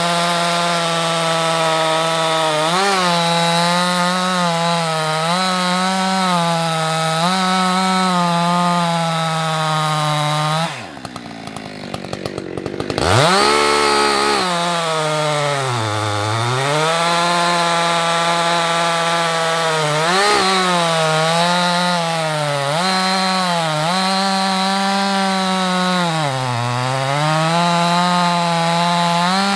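Husqvarna 365 two-stroke chainsaw at high revs cutting firewood, its pitch sagging and recovering as the chain bites under load. About eleven seconds in the throttle drops off and the engine falls low for a couple of seconds, then it revs back up and cuts on.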